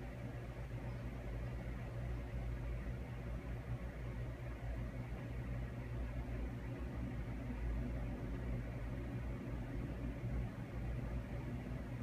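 A steady low hum with a faint even hiss.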